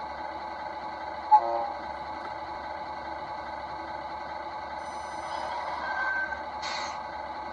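Tamiya radio-controlled tractor-trailer running with a steady mechanical hum made up of several constant tones. A short pitched sound comes about a second and a half in, and a fainter tone rises near six seconds.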